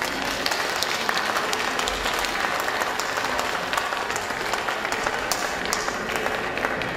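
Audience applauding, a dense patter of clapping that thins slightly near the end.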